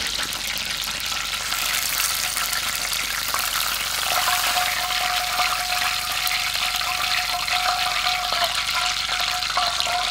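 Whole spatchcocked chicken deep-frying in hot oil on its second fry: a dense, steady sizzle full of fine crackles.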